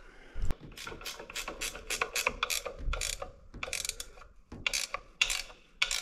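Ratchet wrench clicking in quick, uneven runs with short pauses, tightening bolts as the tractor's valve cover goes back on.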